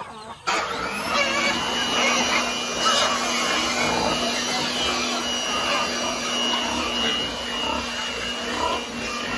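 Small handheld electric blower running steadily, a motor whine over rushing air, as it blows out a pig feed trough. It starts abruptly about half a second in.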